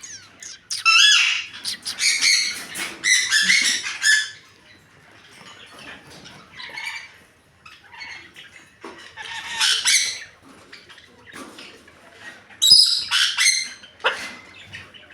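Pet parrots squawking and screeching in loud bursts, with quieter chatter between the bursts.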